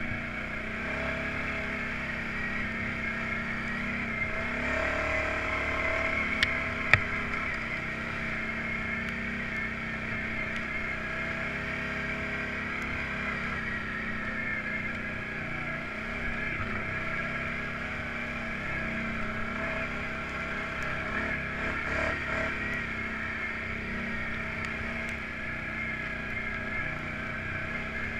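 Off-road vehicle engine running at a mostly steady speed, with two sharp knocks about six and a half and seven seconds in.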